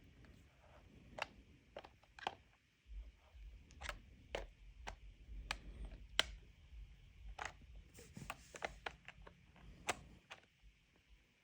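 Faint, irregular small clicks and scrapes of a pliers-type tool gripping and turning the small threaded lock rings on a Kenwood TM-D710A control head's knob shafts, about a dozen sharp ticks spread unevenly.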